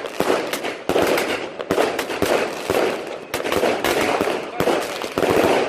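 New Year's fireworks and firecrackers going off in a dense barrage: overlapping sharp bangs and cracks, several a second, over continuous crackling.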